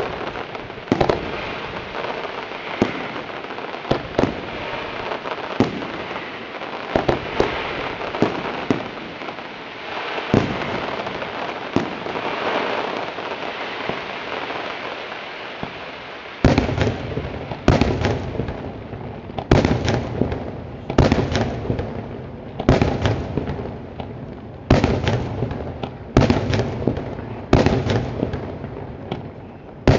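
Daytime fireworks display: sharp bangs scattered over a continuous crackling, then from about halfway a quick succession of louder, deeper bangs.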